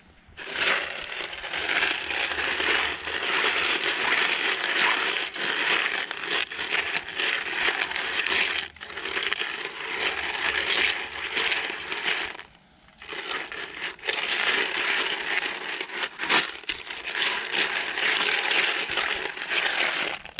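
A bristle paintbrush scrubbing a bowlful of lead airgun slugs and pellets wet with acetone in a plastic bowl, a continuous scratchy rattling of the metal pellets against each other and the bowl. The scrubbing stops briefly twice, the longer pause a little past halfway.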